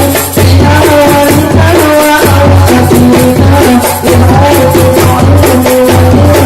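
Hadrah ensemble playing: a sung melody over rebana frame drums, with a deep steady bass boom and a dense jingling or rattling percussion on top.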